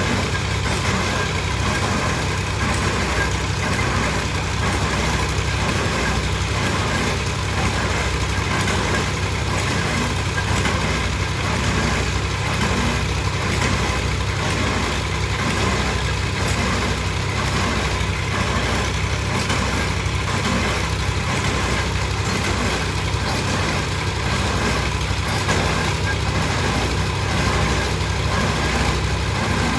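Engine of heavy construction machinery running steadily at an even speed, with no hammer blows or impacts.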